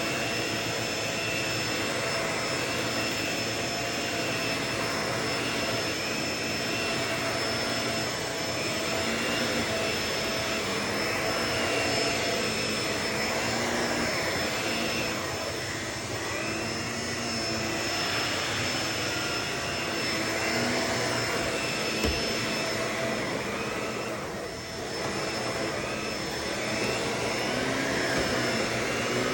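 Vacuum cleaner running steadily, a continuous rushing hiss with a thin high whine over it, its texture shifting as it works. It briefly dips in level about 25 seconds in.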